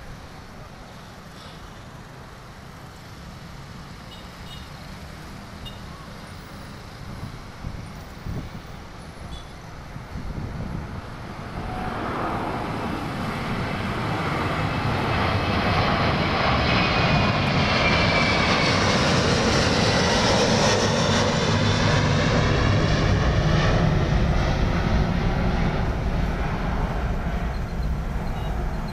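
Jet airliner flying low overhead: its engine noise swells from about twelve seconds in to a loud, sweeping whoosh that holds through most of the second half and eases a little near the end, over faint road traffic.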